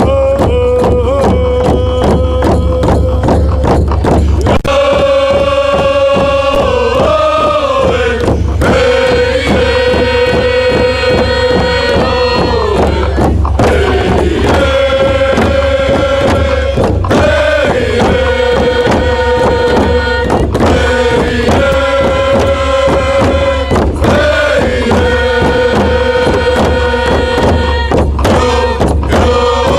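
Background music: a song with a held, sung melody over a steady beat.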